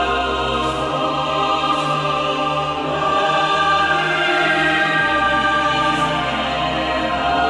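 Background music: a choir singing held chords over low bass notes that change every couple of seconds.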